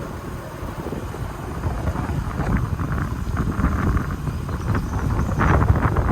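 Small Hero Honda motorcycle running on a rough off-road track, with wind buffeting the microphone. It grows louder over the few seconds.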